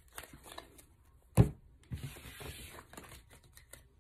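Tarot cards being slid together and gathered up off a cloth-covered table, with soft rustling and small clicks. One sharp knock about a second and a half in is the loudest sound.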